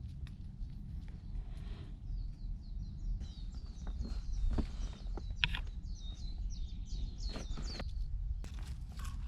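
A bird singing a rapid run of short, high chirps for about six seconds, starting about two seconds in, over a steady low rumble and a few soft taps.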